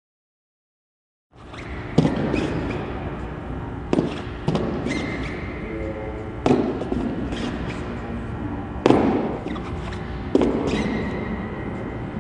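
Sharp thuds of jump landings on a gym floor, about every two seconds, each with a long echo from the large hall; they start after about a second of silence.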